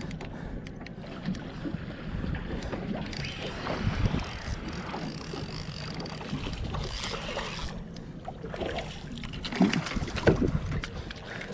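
Wind on the microphone and water noise aboard a small fishing boat, over a low steady hum, with scattered knocks and a few louder bangs about ten seconds in.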